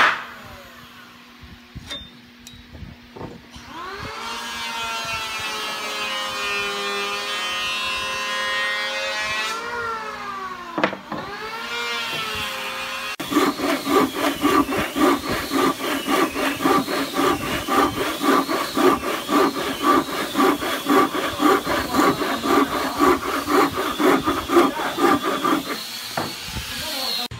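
Hand sawing a small strip of wood with a wooden frame saw (bow saw), in quick even strokes about three a second, starting about halfway in. Before that, long wavering tones of unclear source.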